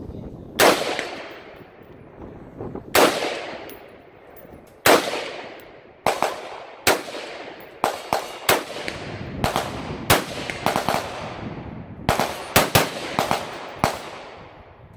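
AR-style semi-automatic rifle firing single shots at an uneven pace, about fifteen in all: slow at first, a couple of seconds apart, then quicker strings of shots later on, each shot echoing briefly.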